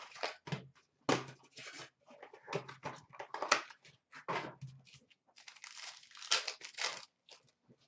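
Upper Deck SPx hockey card box and its foil card packs being torn open and handled, with crinkling wrappers, paper tearing and cards shuffled in irregular short bursts.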